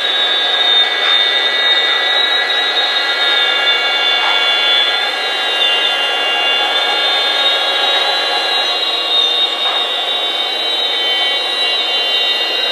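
Five-axis CNC mill cutting, a steady high-pitched spindle-and-cutter whine of several held tones, the highest wavering slightly about five seconds in, over the hiss of coolant spray.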